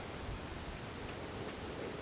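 Steady hiss of wind on the microphone, with a low rumble and faint rustling.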